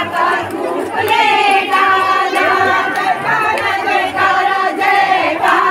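A crowd of women singing together, many voices overlapping, over the noise of the crowd.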